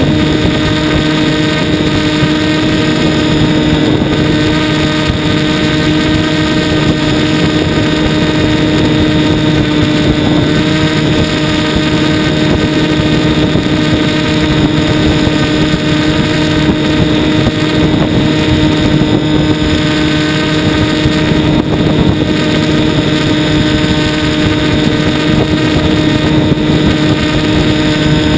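Onboard sound of a radio-controlled FPV airplane's motor and propeller running at a steady pitch, close to the microphone, with air rushing past.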